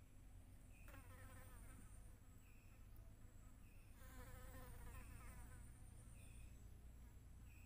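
Faint buzz of a flying insect passing the microphone twice, about a second in and again around four seconds in, each pass a wavering hum lasting a second or so. Short high chirps recur every second or two in the background.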